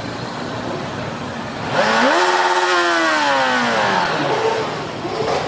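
Motorcycle engine under way with a steady rush of riding noise, then about two seconds in the engine revs up sharply and winds back down over the next two to three seconds as the throttle is opened and closed.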